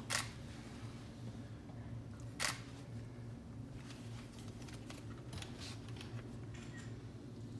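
Camera shutter clicks: two sharp clicks about two and a half seconds apart, then a few fainter ones, over a low steady room hum.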